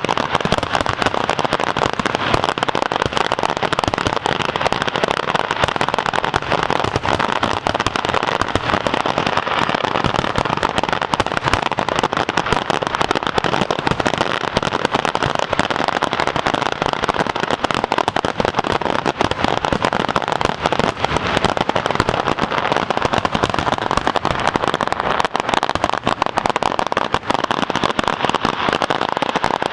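Fireworks grand finale: a dense, unbroken barrage of bangs going off in quick succession, steady in loudness throughout.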